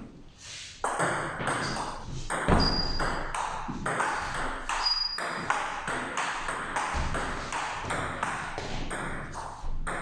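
Table tennis rally: the celluloid-type ball clicking rapidly off rubber-faced rackets and bouncing on the table, with two brief high squeaks.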